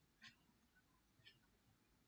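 Near silence: faint room tone with two faint short ticks, about a quarter second in and again just past the middle, from a stylus tapping a tablet while writing.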